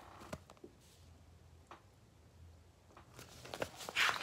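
Paper rustling as the pages of a picture book are handled for a page turn, starting about three seconds in and growing louder near the end. Before that, only faint taps over quiet room tone.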